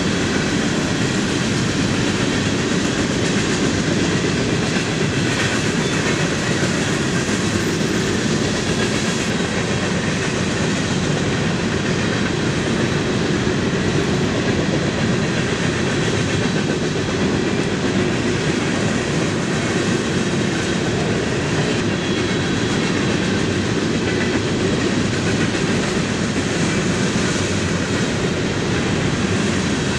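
Freight train of coal cars rolling past, a steady noise of steel wheels running on the rails.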